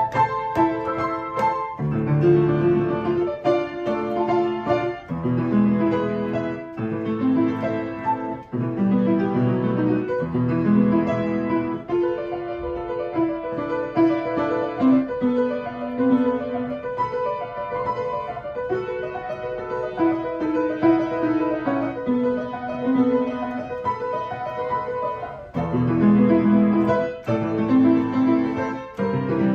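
Solo piano playing a slow piece, with sustained chords changing every second or two and a melody above, growing fuller near the end.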